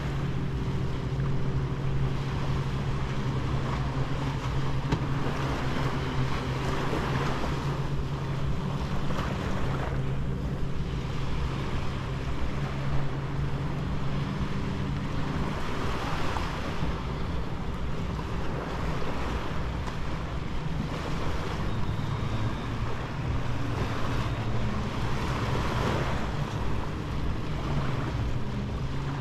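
Sea waves washing onto a sandy beach, the surf swelling every few seconds, with wind on the microphone. Underneath runs a steady engine hum.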